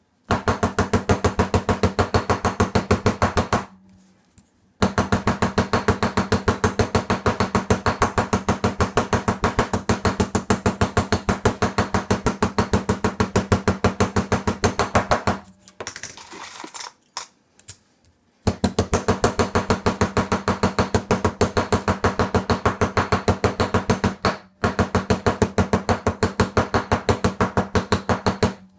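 A hammer tapping rapidly and evenly on small metal charms set on a steel bench block, several light strikes a second with a ringing metallic tone. The hammering pauses briefly about four seconds in and for about three seconds past the middle, where quieter handling sounds come through, then resumes.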